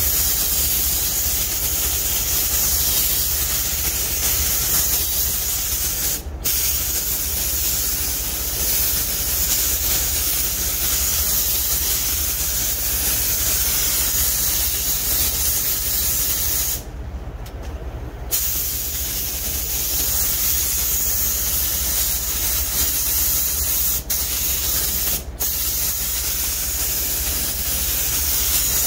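Gravity-feed paint spray gun spraying black paint onto a truck door: a steady hiss of compressed air and atomised paint, with a low hum underneath. The hiss cuts off briefly about six seconds in, for about a second and a half past the middle, and again near the end, as the trigger is let go.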